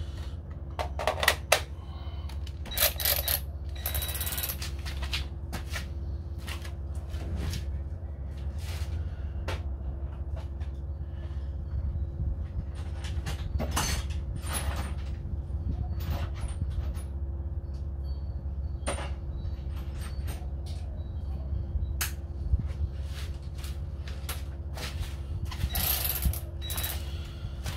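Scattered clicks, knocks and clanks of tools and metal parts being handled while taking apart the front of a VW Beetle, with a few brief louder rattles, over a steady low hum.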